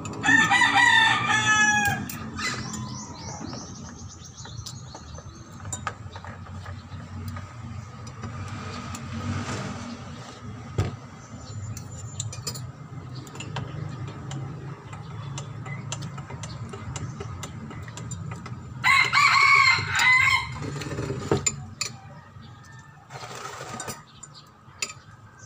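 A rooster crowing twice, once right at the start and again about nineteen seconds in, each crow about two seconds long. Between them come light clicks of a spoon and fork on a plate over a low steady hum.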